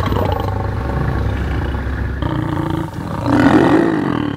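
Mating lions growling and snarling at close range, the rough growls swelling into a louder snarl about three seconds in, the kind of snarling that comes with lions mating.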